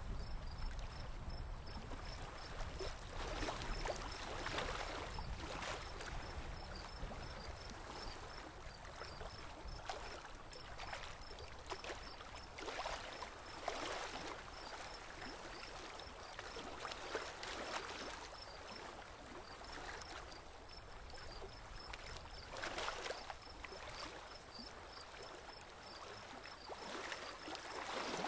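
Water lapping and splashing along the hull of a small boat gliding through calm water, swelling every second or two. A faint high chirping repeats in short runs.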